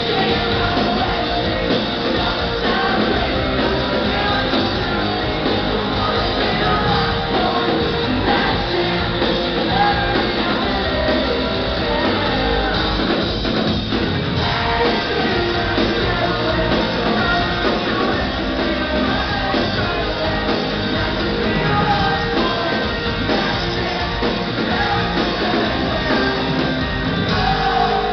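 Live rock band playing a song with sung vocals, drums and electric guitars, heard from the audience on a phone: loud and steady throughout.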